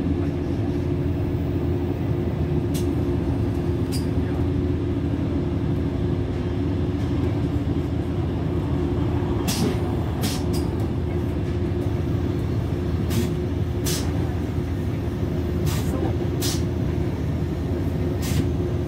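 Cabin sound of a DB class 612 diesel multiple unit running at speed: a steady drone of diesel engine and rolling wheels, with short sharp clicks, several of them in pairs.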